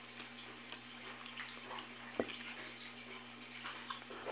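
Quiet eating: faint chewing, with a single light clink of a metal fork on a glass plate about two seconds in, over a steady low hum.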